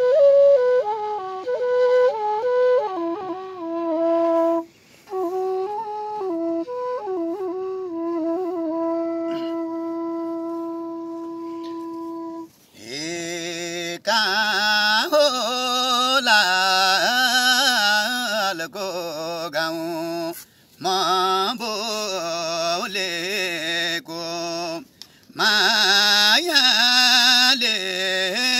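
A side-blown bamboo flute plays a folk melody and settles into a long held note. About halfway through, a man takes over singing in a high voice with a wavering, ornamented line, breaking off briefly twice.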